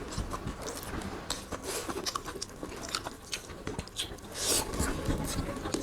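People eating beef curry and rice: chewing with many small, irregular wet clicks, and a short rustling burst about four and a half seconds in.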